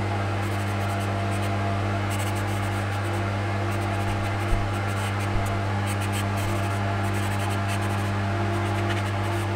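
Electrostatic Magic powder coating gun spraying powder: a steady hiss of air over a steady low electrical hum, with two small knocks midway.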